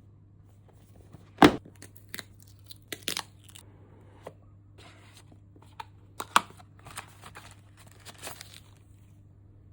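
Unboxing of a smartphone's retail box: tearing and crinkling of the packaging, with a series of sharp knocks and clicks as the box and its parts are handled. The loudest knock comes about a second and a half in, another about six seconds in.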